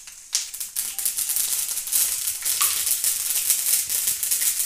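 Mustard seeds crackling and spluttering in hot oil in a kadhai for a tempering. It is a dense, rapid crackle that starts suddenly about a third of a second in and keeps going steadily.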